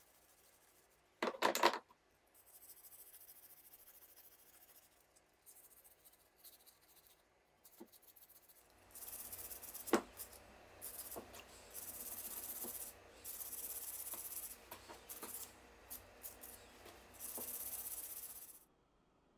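A stiff hand brush scrubbing rust off old steel pliers wet with rust remover, in repeated strokes that turn louder and busier about halfway through and stop shortly before the end. A short loud clatter about a second in.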